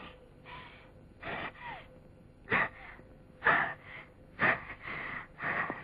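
Heavy, rasping breaths, a harsh gasp every second or so, coming closer together in the second half.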